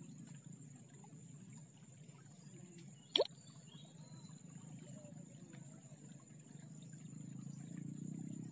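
Quiet, steady low background noise with a faint, thin high whine throughout, broken by one sharp click about three seconds in.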